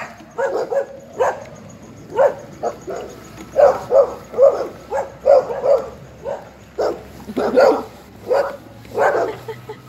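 A dog barking over and over, short sharp barks about two a second in an uneven string.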